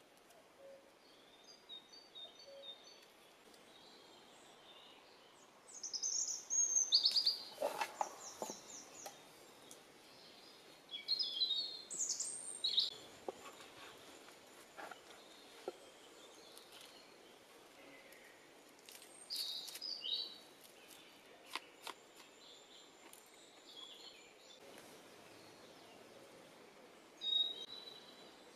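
Songbirds singing in short, high trilling phrases every few seconds over a quiet woodland background, with a few sharp clicks and taps of a knife working on a wooden cutting board.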